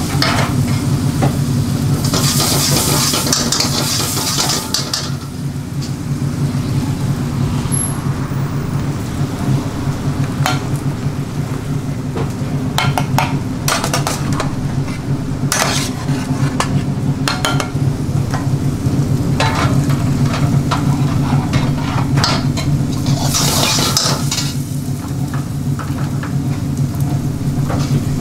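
Food frying and sizzling in a wok over a gas burner while a metal ladle stirs, scrapes and knocks against the wok and pans, under a steady low drone. The sizzle flares up loudly twice, a couple of seconds in and again near the end.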